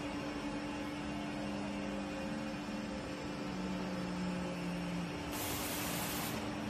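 Steady electric motor hum from a hydraulic scissor-lift platform with a built-in car turntable as the turntable rotates. A short hiss cuts in about five seconds in and lasts about a second.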